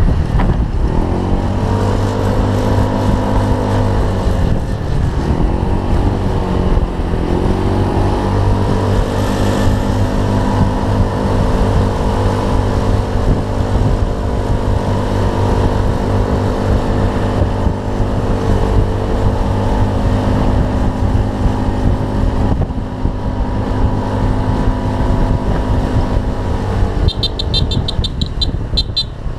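Honda Zoomer-X scooter's small single-cylinder engine running while riding, its pitch rising and falling over the first several seconds and then holding steady. A quick run of high chirps near the end.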